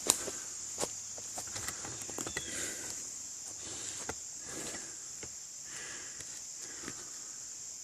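A steady high-pitched drone of insects, with scattered light clicks, snaps and rustling, as of someone moving through brush and debris.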